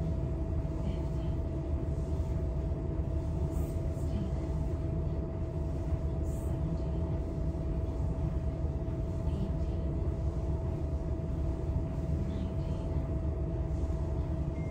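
Steady low mechanical rumble with a constant mid-pitched hum.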